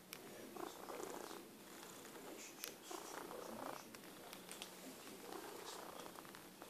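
Domestic cat purring close to the microphone, the purr swelling and fading in waves about every two and a half seconds, with a few faint clicks.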